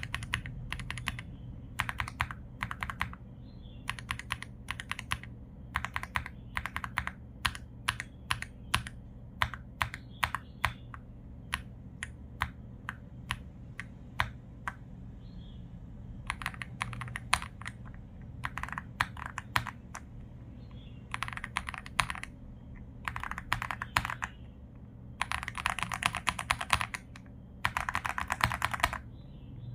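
Typing on an Aula F75 mechanical keyboard with its stock switches: keystrokes come singly and in quick runs, with short pauses between them.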